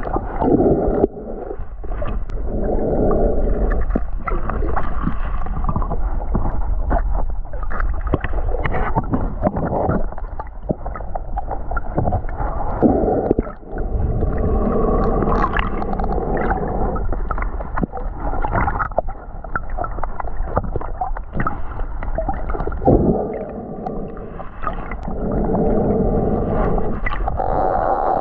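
Underwater noise picked up by a submerged camera: a gurgling rush of moving water that swells and fades every few seconds, with scattered small clicks and knocks.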